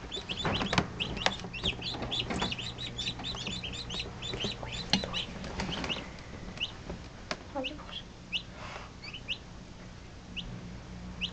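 Newly hatched chicks peeping in an incubator: a dense run of short high peeps that thins out after about six seconds. Under it runs a low steady hum, with a few sharp clicks.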